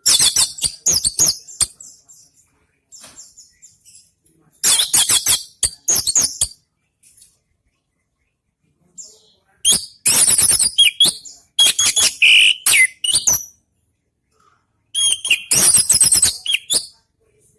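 Orange-headed thrush singing in loud bursts of rapid, high, varied notes, each burst a second or two long and one running about four seconds, with silent pauses between.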